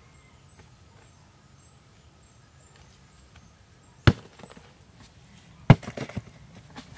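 Large rocks dropped from a bank onto packed sandy soil: two heavy thuds about a second and a half apart, the second followed by a brief clatter of smaller knocks.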